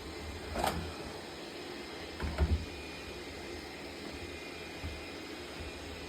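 Yadea Fairy10 robot vacuum running steadily mid-clean, with a sharp click about half a second in and two low knocks a little past two seconds.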